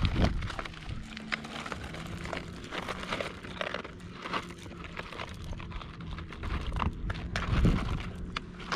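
Irregular rustling and crinkling with many scattered clicks, a louder knock at the start and another thump near the end, over a faint steady low hum.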